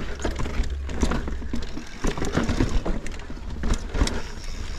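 Transition Spur mountain bike riding through a rock garden: irregular knocks, clunks and rattles as the tyres, chain and frame hit the rocks, over a steady low rumble.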